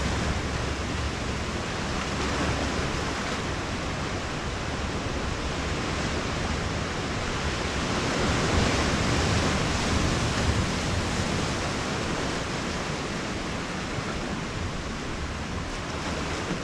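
Ocean surf washing in over rocks: a steady rushing noise that swells about eight seconds in and eases again.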